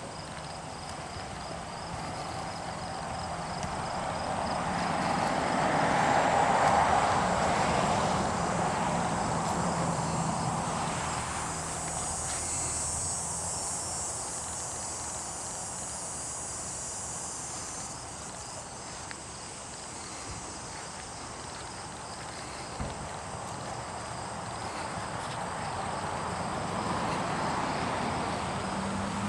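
Summer outdoor ambience of insects chirping and buzzing, with a steady pulsing chirp running throughout and a higher buzz in the middle. A broad rushing noise swells and fades about six seconds in, and there is a single knock near the end.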